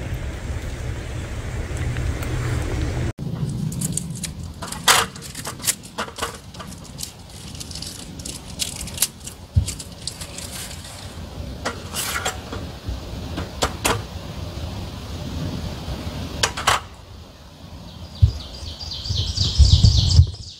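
Strong wind rumbling for the first three seconds. After that, a string of sharp clicks and knocks as things are handled at a metal camp table, ending with a quick run of rapid ticks and thumps.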